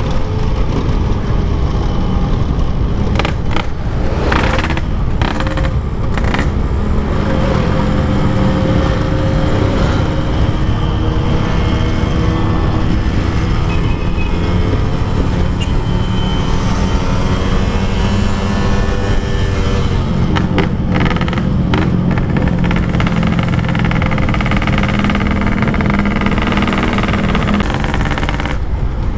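Two-stroke motorcycle engine running on the move, its pitch rising and falling with the throttle over a steady low rumble.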